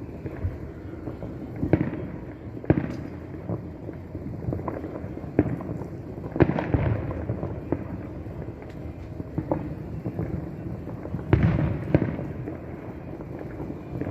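Distant fireworks: a string of aerial shell bursts booming at irregular intervals, each followed by a short low rumble, over a continuous crackle. The heaviest booms come about three seconds in, halfway through, and in a cluster near the end.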